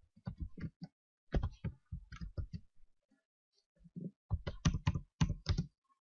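Computer keyboard typing: two quick runs of keystrokes with a short pause between them.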